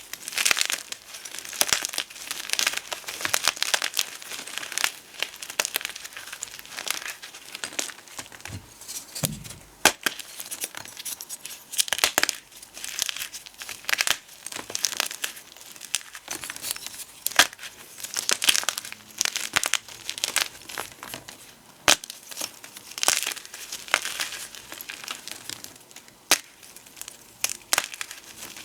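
Gym chalk and potato flour being crushed and crumbled, an irregular run of crackly crunches with sharp snaps scattered through it.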